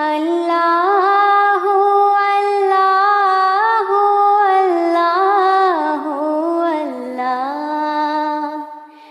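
A single voice sings a Bengali Islamic gojol unaccompanied, in long held notes that bend and glide. The melody drops lower about seven seconds in, and the voice fades out near the end.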